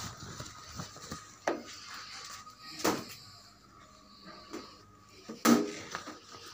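A few sharp knocks and rustles, the loudest near the end, over a faint steady tone.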